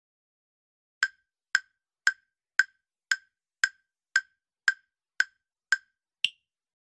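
Countdown-timer tick sound effect: eleven sharp wood-block-like ticks, about two a second, starting about a second in. The last tick is higher-pitched, marking the end of the countdown.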